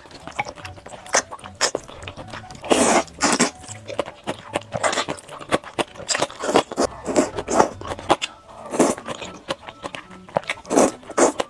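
Close-miked eating: crunchy bites and chewing, a steady run of sharp crackles with a few louder crunches, about three seconds in, near nine seconds and near the end.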